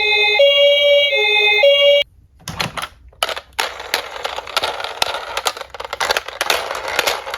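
Two-tone hi-lo ambulance siren alternating between two pitches, cut off suddenly about two seconds in. It is followed by quick clicking and rattling as small diecast toy cars roll down a slope.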